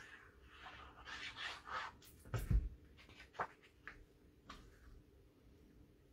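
Paper being handled at a desk: soft rustling and rubbing as a sheet of patterned card stock is glued, positioned and smoothed down by hand. A dull thump about two and a half seconds in, then a few light taps.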